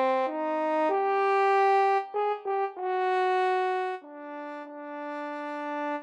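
Instrumental background music: a slow melody of long held notes, with a few quick short notes a little past the middle and a softer last note that fades.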